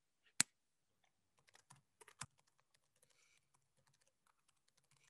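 Computer keyboard typing: faint, irregular key clicks, with one sharper click near the start and a few stronger keystrokes about two seconds in.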